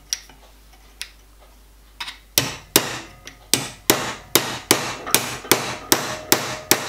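Hammer blows on a piece of aluminium held against a small metal bracket clamped in a bench vise, bending it over the corner. A few separate taps, then from about two seconds in a steady run of blows, about two and a half a second, each with a short metallic ring.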